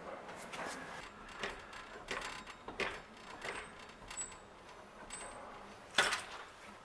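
The 1948 Chevrolet's newly fitted driveline U-joint turned slowly by hand, with scattered light clicks and knocks and a sharp clack about six seconds in.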